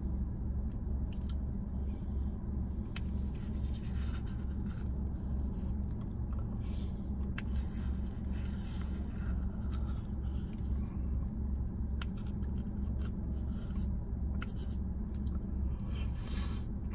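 Steady low hum of an idling car, pulsing evenly, inside the cabin, with faint scattered scrapes and clicks of a plastic spoon digging into a cup of Italian ice.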